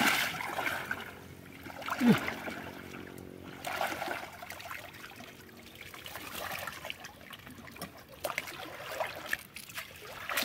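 Shallow pond water sloshing and trickling as someone wades and works a hand dip net, with a louder splash about two seconds in.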